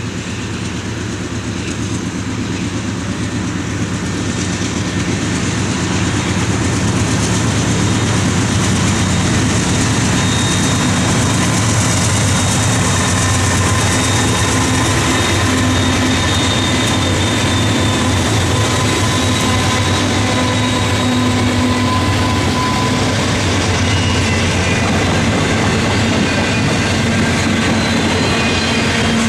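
A diesel freight train approaches and passes close by. The locomotives' engine drone grows louder over the first few seconds, followed by the steady rumble and wheel noise of double-stack intermodal cars. Thin, high wheel squeals come and go through the middle.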